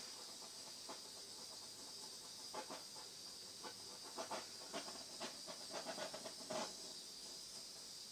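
Small handheld torch flame hissing steadily over a wet acrylic pour, with faint scattered crackles in the middle stretch, as it is played over the paint to pop air bubbles.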